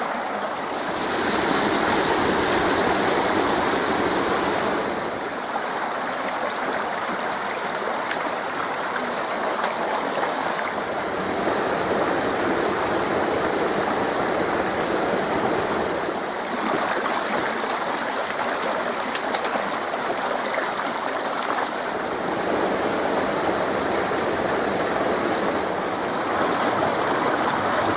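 Creek water rushing and splashing over rocks and small falls: a steady rush that shifts in tone every five or six seconds.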